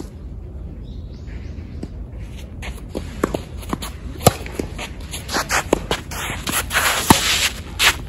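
Tennis rally sounds: sharp knocks of the ball off rackets and the court, with a player's footsteps shuffling and scraping across the court. The knocks come several times from about three seconds in. The loudest knocks are about four and seven seconds in, and a scraping rush of footwork falls just before the second of these.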